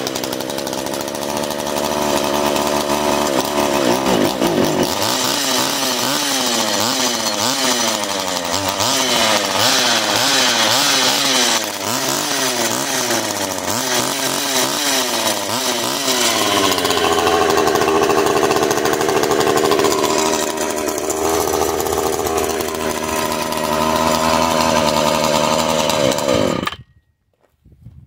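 Stihl 015AV two-stroke chainsaw running without cutting: the throttle is blipped so the engine revs up and down over and over, then it runs at a steadier speed before being shut off and stopping abruptly near the end.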